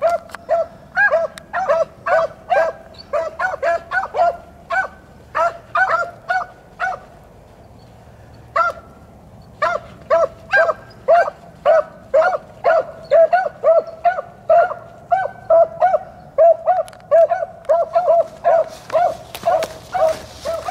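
Beagles giving tongue on a rabbit's track: short, repeated barks at about two to three a second, with a pause of about two seconds near the middle before the barking picks up again.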